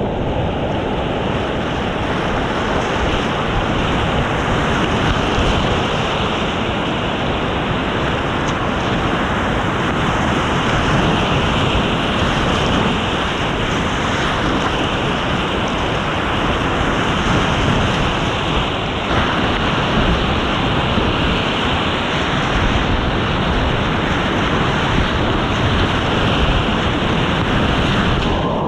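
Loud, steady rush of whitewater rapids churning around a kayak, heard from the boat itself at water level.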